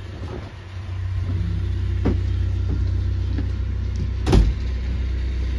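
Hire cruiser's inboard diesel engine running with a steady low hum, growing louder about a second in. A single thump about four seconds in is the loudest sound.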